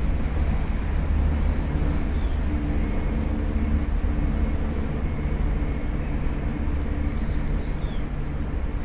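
Steady low rumble of a distant engine, with a faint drone that holds one pitch for most of the time.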